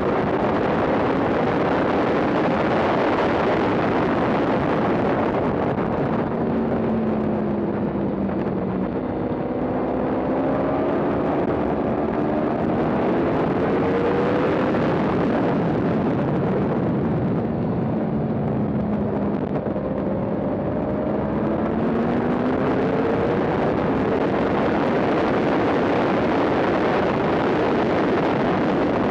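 Yamaha R1's inline-four engine at race pace, its pitch climbing again and again through the gears and dropping back twice as it slows for corners, under heavy wind rush.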